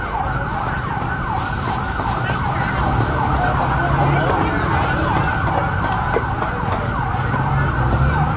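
An electronic siren-like warble: a tone sweeping up and down several times a second without a break, over a low rumble.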